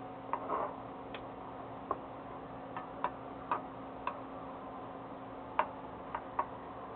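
About a dozen small, sharp clicks and taps at irregular intervals, with one slightly longer rustle about half a second in, over a faint steady hum.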